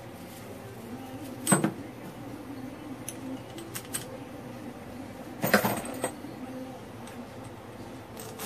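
Metal clanks from a Jeep Wrangler JK front driveshaft's CV joint being handled on a workbench: two louder clanks, about a second and a half in and about five and a half seconds in, with a few lighter ticks between them, over a steady low hum.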